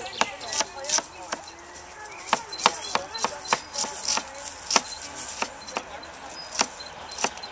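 Kitchen knives chopping vegetables, a fennel bulb on a plastic cutting board and small pieces on a plastic plate, in quick, irregular knife strikes against the boards.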